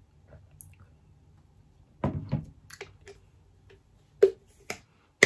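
Plastic shaker cup handled in the hands: a couple of soft knocks about two seconds in and a few light clicks, then two sharp clicks just after four seconds as its flip-top cap is snapped shut.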